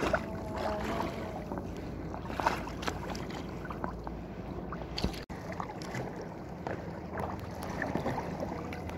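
Choppy water lapping and splashing against a sea kayak's hull, with small scattered splashes and wind rumbling on the microphone.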